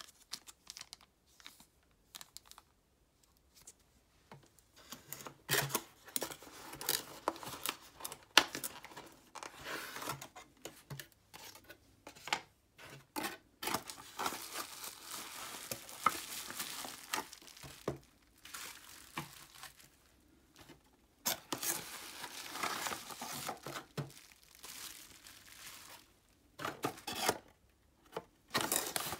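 Plastic wrapping crinkling and a cardboard box being opened and handled: irregular bursts of rustling with a few sharp clicks, and longer stretches of crinkling about halfway through and again a little later.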